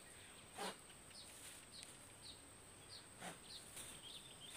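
Quiet outdoor background with a small bird chirping, short high chirps about twice a second, and two brief soft rustles, one near the start and one a little past the middle.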